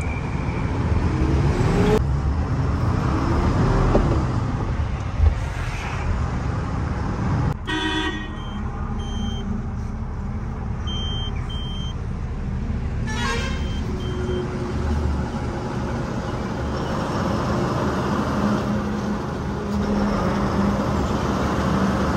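Mahindra Blazo X 16-wheel truck's diesel engine running and revving, rising in pitch twice in the first few seconds, as the truck is reversed. Two brief horn toots sound about 8 and 13 seconds in, with a few short high beeps between them.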